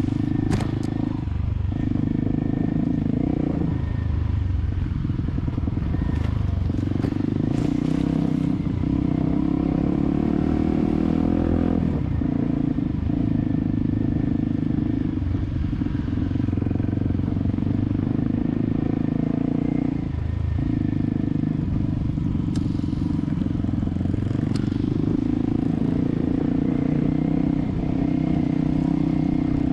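Motorcycle engine running steadily under way, dropping briefly in pitch and level a few times as the throttle is eased or a gear changes, with a few sharp clicks and clatters.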